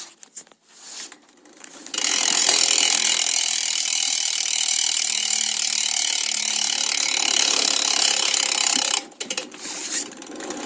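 BMX rear hub's freewheel pawls clicking as the rear wheel spins: a few single clicks, then about two seconds in a fast, loud, continuous ratcheting buzz for about seven seconds that stops suddenly, followed by a few more scattered clicks near the end.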